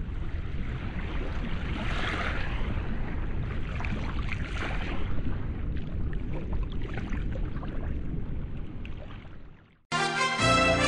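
Steady rushing and splashing of sea water, with a low rumble, fading out about nine and a half seconds in. Music starts just before the end.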